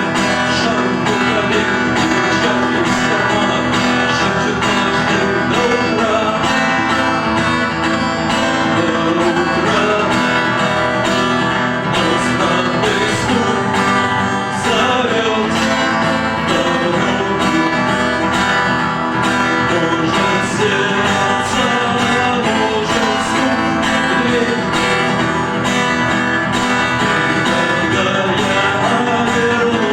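A rock song played live, led by strummed guitar, with singing.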